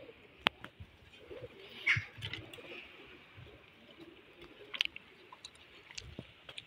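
Birds calling on a rooftop, with a few sharp clicks along the way.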